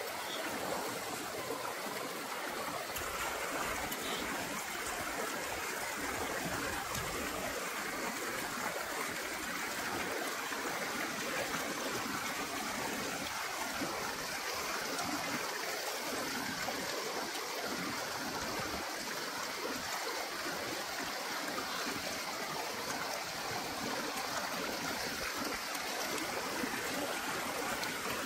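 Steady running water of a forest stream, an even rushing and trickling that does not change.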